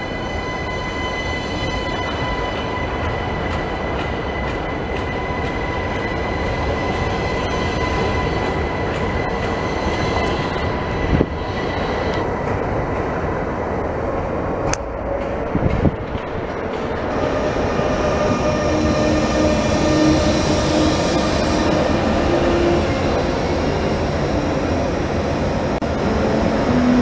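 Electric passenger trains running along a station platform. Steady high whining tones from the first train fade out around halfway through, followed by a single sharp click. Over the last third, another train's running noise carries shifting tones that rise and fall.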